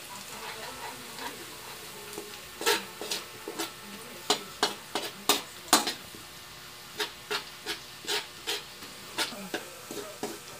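Metal spatula stirring and scraping in a metal wok, clinking irregularly against the pan, sometimes several times a second, over a steady sizzle of chopped garlic and onion frying in oil.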